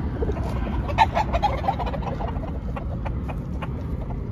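Gamecock clucking: a quick run of short clucks about a second in, then a few scattered ones.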